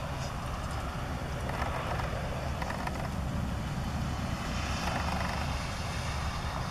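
A steady low engine drone in the distance.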